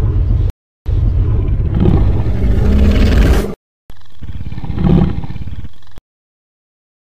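Spinosaurus roar sound effects: a loud, deep roar that cuts off abruptly, a second long roar, then a quieter rumbling growl that swells near its middle, each clip separated by dead silence.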